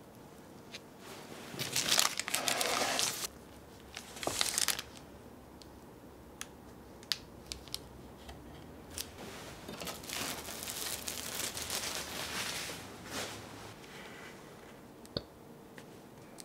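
Parchment paper crinkling under a cake as a knife presses down through it, in two loud bursts about two and four seconds in. Later a cake server slides under a slice on the paper, with a few small clicks and a softer, longer rustle.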